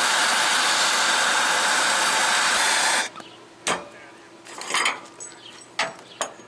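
Welding arc running as a steady hiss for about three seconds, stopping abruptly, then a few light metal knocks.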